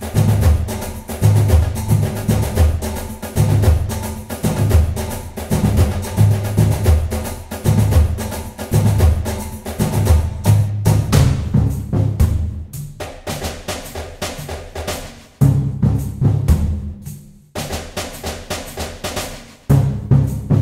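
Background music led by drums, with a heavy kick and snare over a repeating bass pattern. In the second half it thins out, with a few short breaks.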